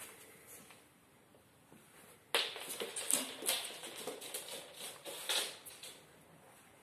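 Greyhound's claws clicking and scrabbling on a hard floor as it sets off and trots away, starting suddenly about two seconds in and dying away after about three and a half seconds.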